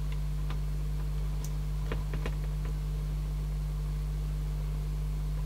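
A steady low electrical hum, with a few faint small clicks about half a second and two seconds in as fingers handle small parts of a cassette deck's tape mechanism.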